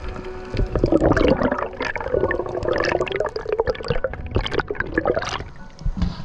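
Breaking waves churning over a reef, heard from underwater: irregular surges of rushing water and bubbles. The sound drops away just before the camera surfaces near the end.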